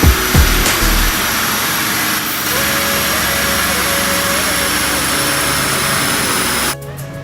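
Porsche 911 Carrera (991.2) with a TechArt aftermarket exhaust. A few sharp cracks come in the first second, then the engine and exhaust give a steady, loud rushing sound with a faint steady whine, which cuts off suddenly near the end.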